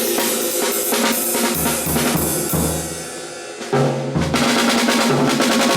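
Jazz band music with a drum kit and bass notes playing a song. It eases off, then comes back in louder a little after halfway.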